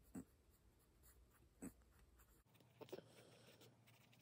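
Faint scratching of a pencil writing on notebook paper in short strokes, a few slightly louder than the rest.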